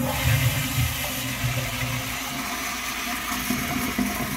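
Flushmate pressure-assist toilet flushing with a freshly installed, just-calibrated cartridge: a steady rush of water that cuts off suddenly near the end.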